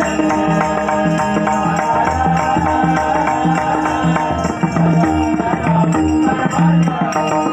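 Marathi bhajan music between sung lines: a hand drum and jingling percussion keep a steady rhythm under a held, sustained melody.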